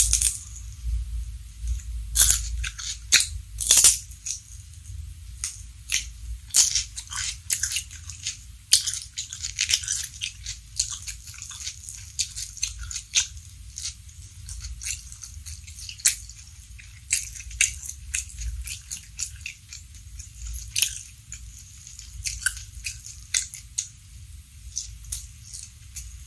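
Close-miked crunching and chewing of raw vegetables: irregular crisp bites and chews, loudest in the first few seconds as a raw long bean is bitten into.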